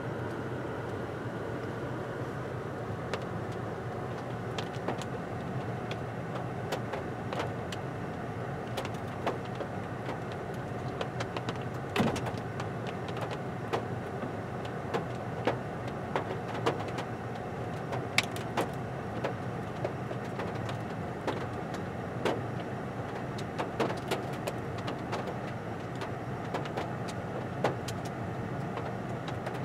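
Steady low hum of a car running, heard from inside the closed cabin. Scattered sharp clicks stand out above it, the loudest about twelve and eighteen seconds in.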